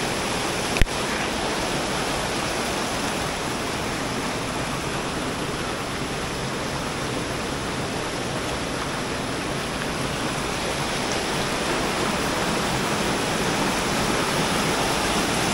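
Steady rush of falling water from a woodland waterfall and stream. A single short click just under a second in.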